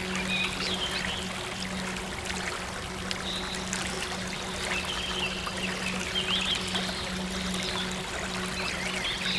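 Water running and trickling steadily, like a small stream, with small birds chirping on and off and a low steady hum underneath.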